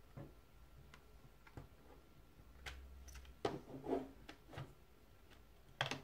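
Plastic CD jewel case being handled and opened: scattered clicks and clacks, the loudest cluster about three and a half seconds in as the lid swings open, and another sharp click near the end as fingers press on the disc.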